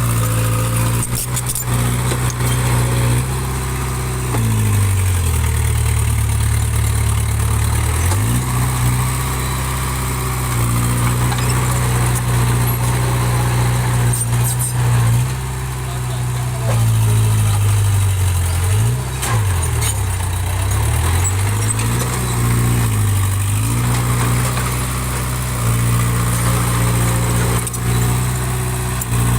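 Small bulldozer's diesel engine running steadily; its engine speed sags and comes back up several times, with a few light knocks.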